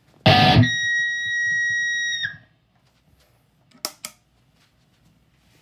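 A loud pop, then a high-pitched whine from a Mesa guitar amp's speaker that holds steady for about a second and a half and cuts off suddenly, followed by two sharp clicks. The whine comes with the effects loop switched on and its return routed through the Thru 3 jack of a Friedman buffer bay, a quirk the owner pins on that box.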